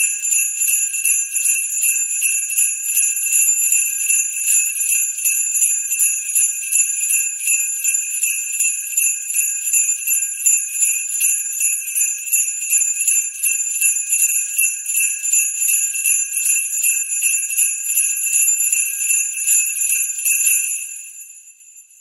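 Sleigh bells (jingle bells) shaken continuously in a fast, even rhythm, with a bright metallic jingle, fading out near the end.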